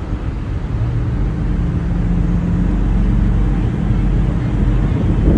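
Ferry's engines running with a steady low drone, heard from the open top deck with wind buffeting the microphone.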